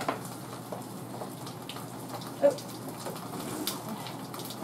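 Eggs frying in vegetable spray in a frying pan: a steady sizzling hiss with scattered faint crackles, and one brief knock about halfway through.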